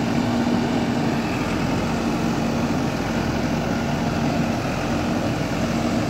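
JCB backhoe loader's diesel engine running steadily as the backhoe arm works, with a constant humming tone.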